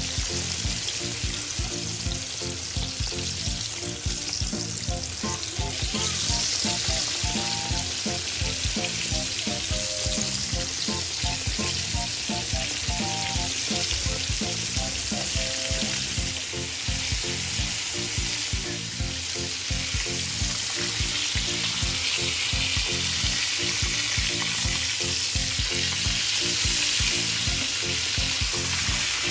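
Breaded chicken breast deep-frying in a pan of oil on high heat: a steady sizzle and bubbling of the oil.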